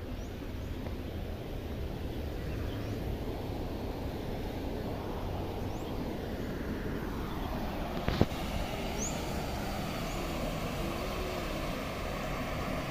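Steady outdoor rushing noise with a low rumble, growing fuller about seven seconds in. A single sharp knock comes about eight seconds in.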